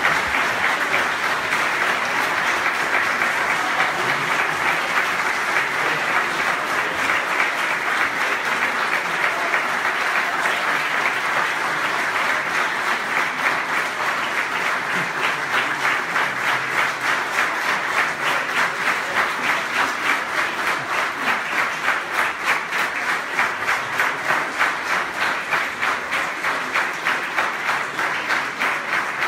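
Audience applauding after the performance; in the second half the clapping falls into a steady rhythm, about two claps a second, the whole crowd clapping in time.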